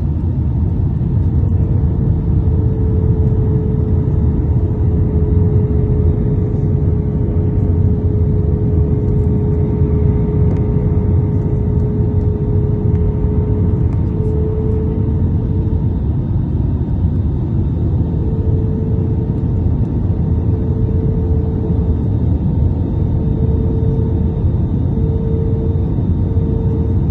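Airliner cabin noise in flight: a steady low roar of engines and airflow, with a faint hum that holds steady and then turns into a regular pulsing past halfway through.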